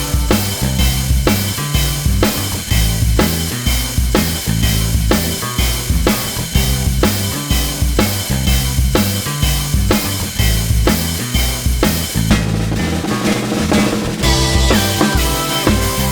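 Background music with a steady drum-kit beat and a bass line; the drums drop back briefly about twelve seconds in.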